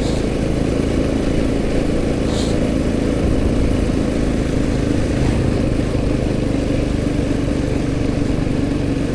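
Motorcycle engine running at a steady speed while riding, with a steady rush of wind and road noise.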